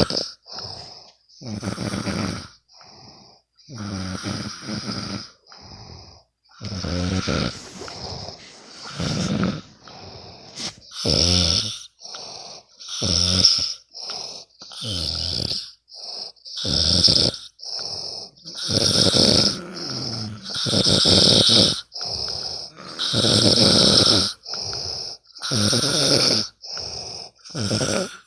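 A sleeping person snoring, about one snore every second or two, some louder than others.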